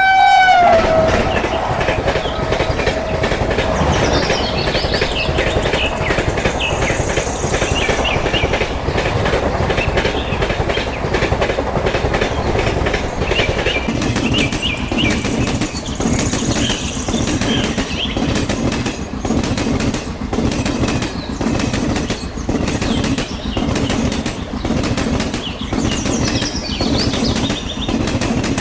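Continuous rattling clatter made of many rapid clicks. It opens with a horn-like tone that drops in pitch and fades within the first second. From about halfway through, a low rumble under the clatter grows stronger.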